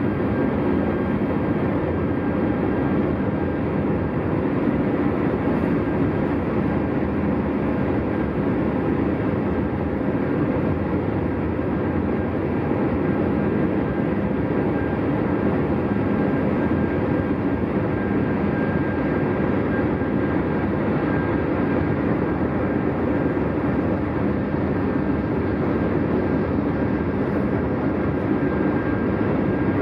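Steady road and tyre noise of a 2020 Hyundai Tucson cruising on the interstate, an even rumble with a faint steady high whine and no changes.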